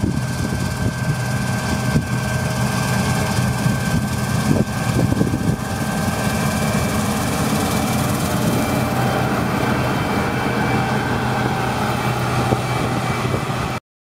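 Massey Ferguson 9500-series combine harvester, its seven-cylinder diesel and threshing machinery running steadily while harvesting: an even drone with a few steady whining tones. It cuts off suddenly just before the end.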